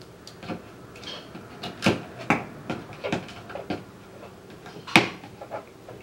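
Small metallic clicks and taps as snap ring pliers grip and spread a steel snap ring and knock against the table, irregular, with the sharpest click about five seconds in.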